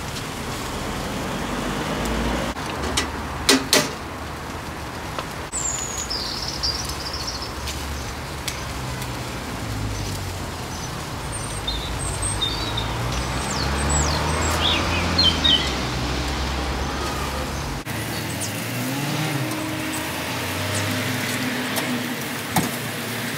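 Meat sizzling on a charcoal barbecue grill, a steady hiss over a low rumble, with a couple of sharp clicks a few seconds in and birds chirping now and then.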